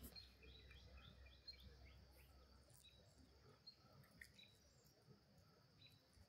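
Near silence: faint outdoor ambience with a few soft, high bird chirps, most of them in the first two seconds.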